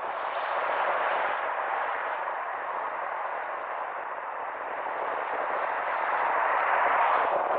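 Steady rushing road and wind noise of a car driving along a city street, as picked up by a camera on the car. It swells about a second in and again near the end.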